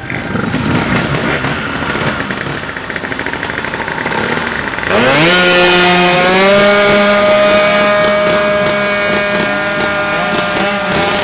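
Drag-racing scooter built on a Gilera Runner 125 engine revving unevenly on the start line, then launching about five seconds in: the pitch rises sharply and then holds one steady high note at full throttle as it runs down the strip.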